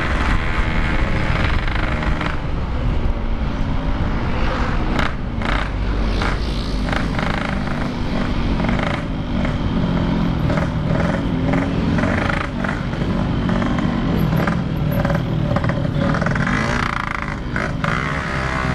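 Yamaha RX-King 135cc single-cylinder two-stroke engine and its hollowed-out stock exhaust, heard while riding. The engine pitch rises and falls with the throttle, with several short rough bursts about five to seven seconds in.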